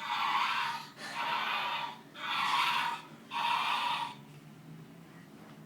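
Loud breathy huffs or snorts, about one a second, four in a row, stopping about four seconds in.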